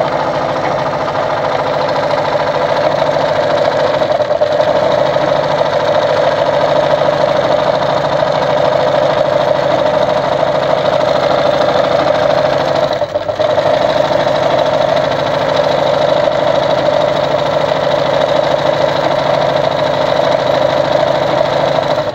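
Brother Pacesetter ZU2-B605 electric sewing machine running steadily at full speed, sewing out decorative stitch pattern number 9. It falters briefly about halfway through, then runs on and stops at the end.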